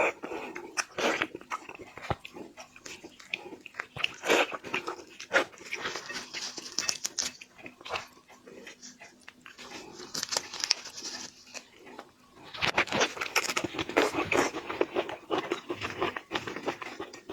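Close-up eating sounds of a person biting and chewing marinated shrimp, in irregular bursts of crunches and wet mouth noises. The sounds grow busiest over the last few seconds.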